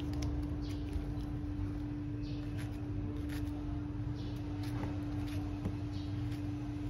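Small kitchen knife slicing into a peeled pineapple to cut out the eyes: a series of short, irregular scraping cuts, over a steady low hum.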